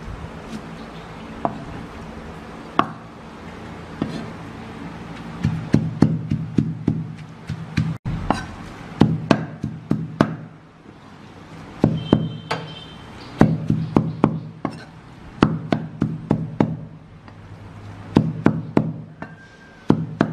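Steel cleaver chopping rapidly on a thick wooden chopping board, mincing pork with glass noodles: quick runs of sharp knocks broken by short pauses.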